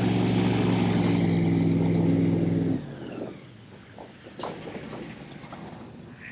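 Airboat's engine and propeller running loud and steady, then dropping away suddenly about three seconds in, leaving a few faint knocks.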